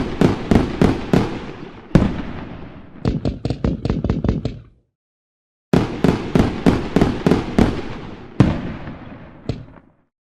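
Fireworks bursting in rapid volleys of sharp bangs, each trailing off in an echo. The first volley includes a quick run of thinner crackling pops. It stops dead for about a second halfway through, then a second volley ends with a couple of single bangs.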